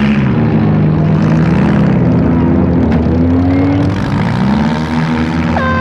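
Several demolition derby cars' engines running together, revving up and down as the cars push and manoeuvre.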